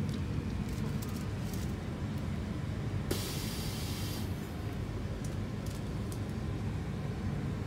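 Pneumatic heat press closing onto a wetsuit panel, with a hiss of compressed air lasting about a second, starting about three seconds in, over a steady low machine hum. Before it, a few faint crackles as plastic transfer film is peeled off the neoprene.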